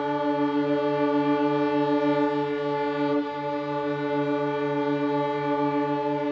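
A chamber ensemble holding one long, low, steady note rich in overtones, with a gentle pulsing in its lowest tone.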